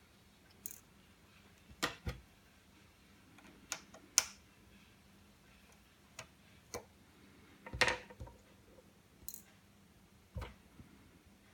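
Scattered light clicks and taps of a small screwdriver and tiny screws against an iPhone 5's metal parts during disassembly, about a dozen at irregular intervals.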